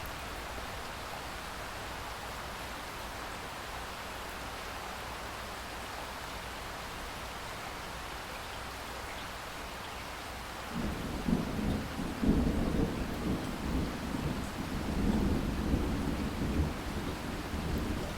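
Steady rain falling, then about eleven seconds in a low rumble of thunder breaks in and rolls on in uneven surges over the rain.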